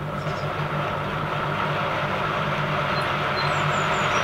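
Electric motor and drive of an EFE Rail OO gauge Class 143 model train running on a rolling road: a steady whirring hum that swells just as power is applied, then holds even. The motor runs quietly for a model.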